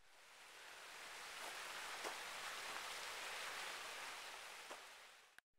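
Steady outdoor rushing hiss that swells in over the first second and fades away near the end, with a few faint ticks in it.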